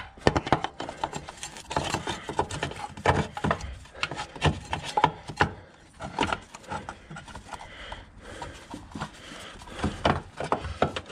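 Irregular knocks, clicks and scraping as a replacement engine mounting is handled and worked into its position by hand.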